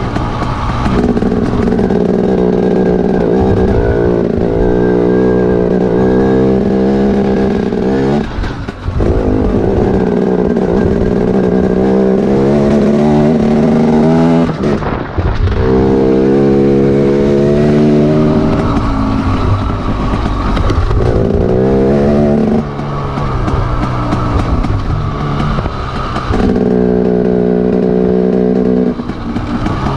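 KTM Freeride dirt bike engine running while riding on a dirt track. Its pitch rises and falls with the throttle, and it drops off briefly about four times where the throttle is closed.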